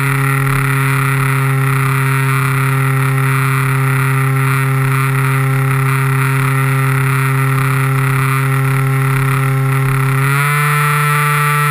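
Electric motor and propeller of an RC model plane, heard close up from the onboard camera: a loud, steady whine with one pitch, stepping up slightly about ten seconds in.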